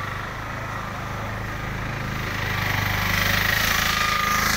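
A vehicle engine running with a steady, rapid pulse, getting louder about two and a half seconds in.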